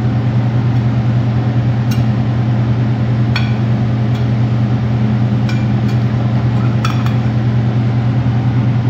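Steady low hum, with a few light clinks of a metal spatula against a ceramic plate and the fish on it.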